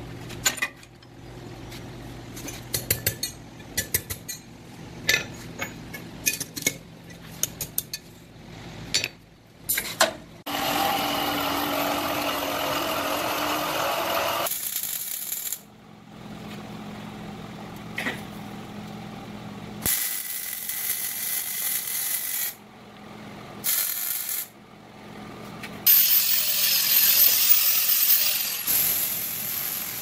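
Steel parts clinking and tapping in quick succession as a forged spring latch is worked in a vise, then a steady hiss of about four seconds. After that come several spells of MIG welding crackle on a steel frame. Played at double speed.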